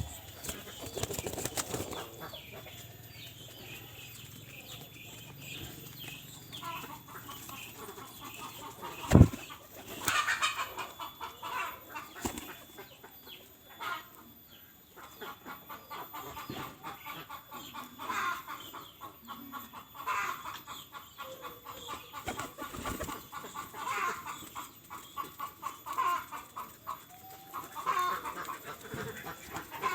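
Pigeons flapping their wings at feeding, with repeated short bird calls through the second half and a single sharp knock about nine seconds in.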